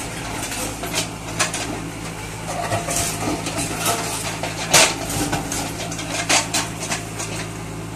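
JCB backhoe loader at work: its diesel engine runs steadily while the bucket knocks and scrapes among rubble and metal roofing sheets, giving a string of sharp metallic clanks and knocks. The loudest knock comes a little past halfway.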